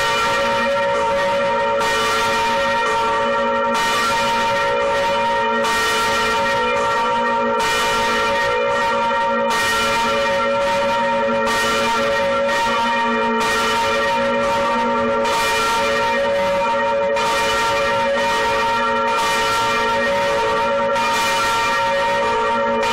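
Large cast bells of a sound installation ringing loudly, struck about every two seconds. Each stroke brings a bright surge over a continuous hum of many overlapping bell tones that never dies away between strokes.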